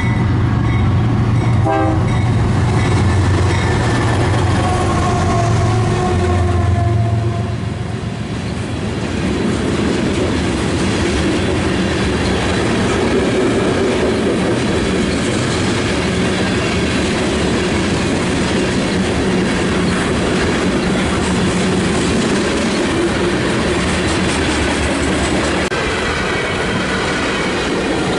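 Train passing close by: deep steady engine tones for the first several seconds, then a long run of cars rolling past with continuous clickety-clack of wheels over the rail joints.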